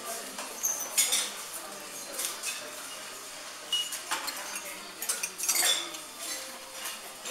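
Metal cutlery clinking and scraping against a ceramic soup cup and plates during a meal: a spoon in the soup cup and a fork on a plate, in scattered, irregular clinks, the sharpest about a second in and again past five seconds.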